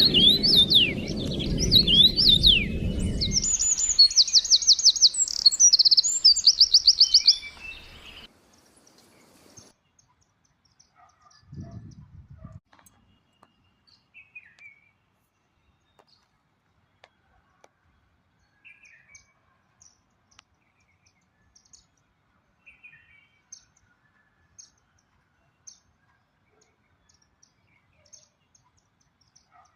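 Songbirds chirping and singing, loud for the first eight seconds or so, with a fast run of repeated high notes about four to seven seconds in. A low rumble sits under the first few seconds, and after about eight seconds only faint, scattered chirps remain.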